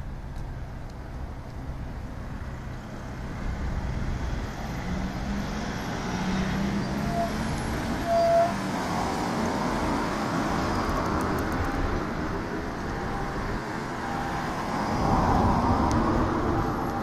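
Road traffic noise: a steady rumble of cars, growing louder partway through, with a short beep about eight seconds in.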